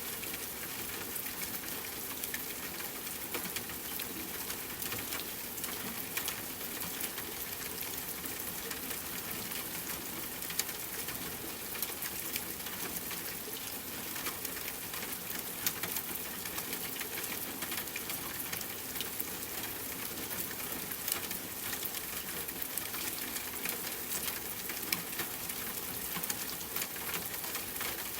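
Steady rain falling on a tent, with a campfire crackling in the mix: an even hiss with scattered sharp ticks and pops throughout.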